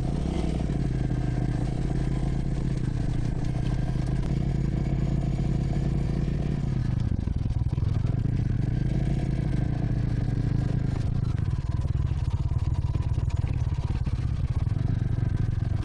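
Motorcycle engine running as the bike is ridden, steady for the first few seconds, its pitch dropping about seven seconds in and climbing again after.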